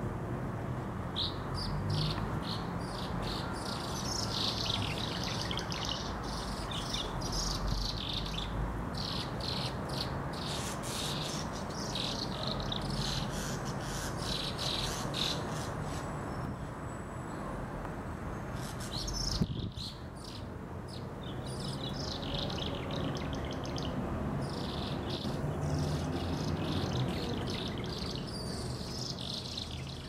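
Birds chirping in quick, irregular bursts of short high notes, pausing briefly after the middle and then resuming, over a steady low background rumble.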